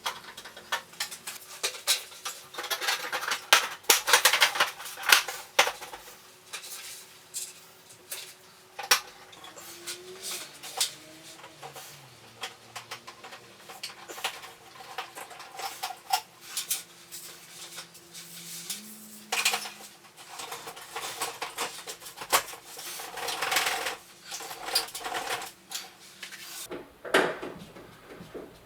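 Irregular metallic clinks, clicks and rattles of hardware and tools being handled while an 8-foot LED shop light fixture is mounted and wired. The clinks come in busier clusters, the densest near the start, with a faint stretch near the end.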